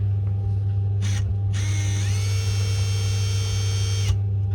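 Electric motor of a Parkside cordless impact wrench running with the casing split open: a brief blip on the trigger about a second in, then a whine that rises in pitch as the motor spins up, runs steadily for about two and a half seconds and stops. It is a normal motor noise with no grindiness, which points the fault away from the motor.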